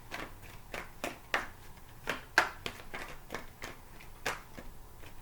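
A deck of tarot cards being shuffled and handled by hand: a run of irregular slaps and flicks, two or three a second, that stops near the end.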